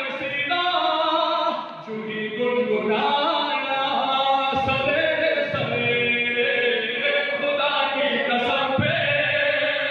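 A man singing a devotional chant into a microphone through a PA system, his voice sliding between held notes. A few short sharp knocks sound partway through and near the end.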